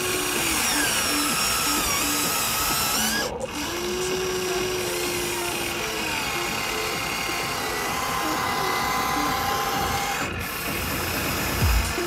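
A small electric motor whining, its pitch rising and falling, over tinny music. The sound breaks off briefly twice.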